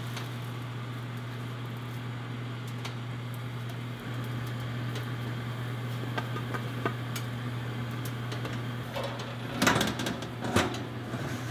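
Steady low hum from the running oven, with a few light clicks as dough rounds are set down on a metal baking sheet. Near the end the metal oven rack and sheet rattle as they are pushed back in.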